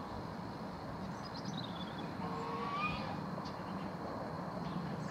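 Steady, distant rumble of a four-engined Airbus A380 airliner passing over at cruising altitude. A few faint high chirps and a short whistle sound over it around the middle.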